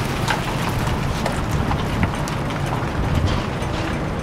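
Wind buffeting the microphone outdoors over a steady low rumble, with scattered light clicks of footsteps.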